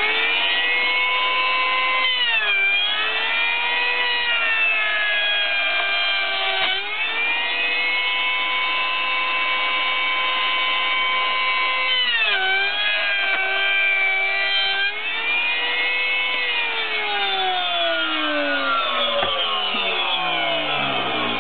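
Hand-held electric wood router, mounted upside down in a table, running at full speed with a high whine. Twice its pitch sags for a few seconds and then recovers as the cutter bites into a wooden beehive-frame side bar, milling the Hoffman spacer. About three-quarters of the way through it is switched off and winds down with a steadily falling whine.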